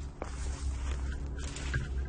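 A hiker's footsteps on rough ground, a few short scuffs and crunches over a steady low rumble.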